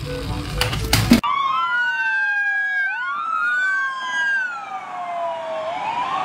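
Background music for about a second, then a police car siren wailing in slow rising and falling sweeps.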